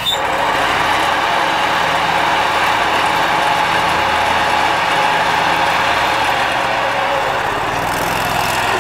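Scag Turf Tiger zero-turn mower running steadily, its engine and spinning cutting-deck blades together. The sound jumps louder right at the start and then holds even.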